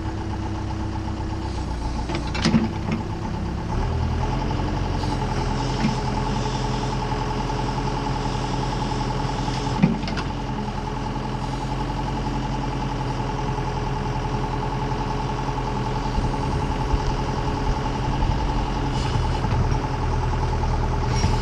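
Case 590 backhoe's diesel engine running steadily, picking up speed slightly about four seconds in, with a few short metallic clanks at about 2.5, 6 and 10 seconds.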